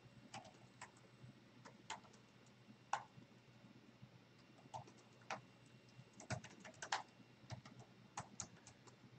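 Faint typing on a computer keyboard: irregular keystroke clicks in scattered runs, busiest about six to seven seconds in.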